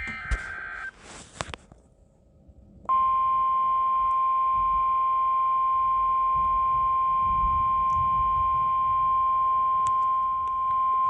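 Weather radio speaker sounding an emergency alert: a brief burst of buzzing two-tone data (the SAME alert header) near the start, then, about three seconds in, the NOAA Weather Radio 1050 Hz warning alarm tone. The alarm tone is one steady, shrill, loud tone held for about nine seconds, signalling that a warning message is about to be broadcast.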